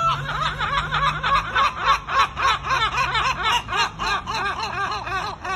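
A long, unbroken run of laughter: quick rising-and-falling 'ha' notes, about four or five a second.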